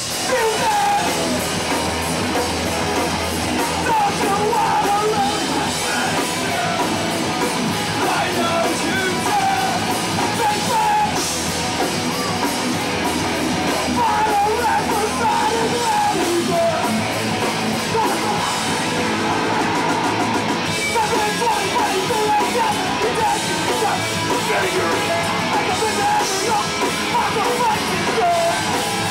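Live hardcore punk band playing: distorted electric guitars, bass and drums at full volume under a shouted vocal, with no break.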